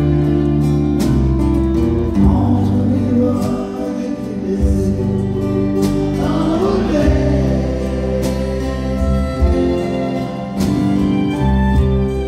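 Live Québécois country-western song: a man sings lead into a microphone over amplified instrumental accompaniment, with other voices singing along.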